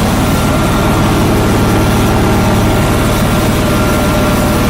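John Deere 445 garden tractor's liquid-cooled V-twin engine idling steadily, with a faint steady whine above it.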